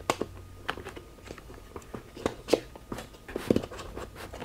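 Light plastic clicks and taps, scattered and irregular, as a Cardo air mount is worked and slid onto its plastic base on the side of a half helmet.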